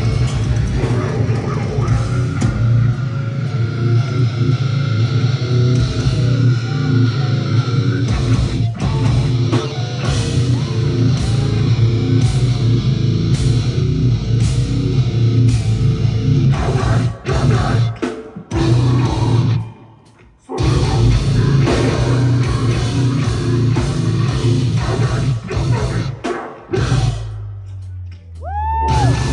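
Heavy metal music with guitars and drums. It cuts out briefly twice in the second half.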